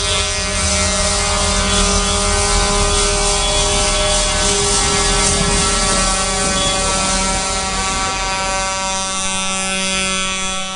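Farm tractors' diesel engines running as a line of tractors passes close by, with a steady pitched drone over the engine noise.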